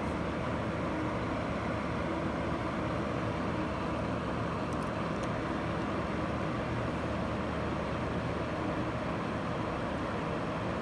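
Steady background hum and hiss that does not change, with a couple of faint ticks about five seconds in.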